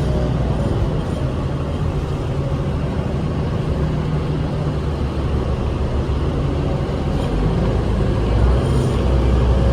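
New Flyer D40LF city bus running with its Cummins ISL 8.9 L six-cylinder diesel, a steady low rumble with road noise heard from inside the cabin, growing a little louder near the end.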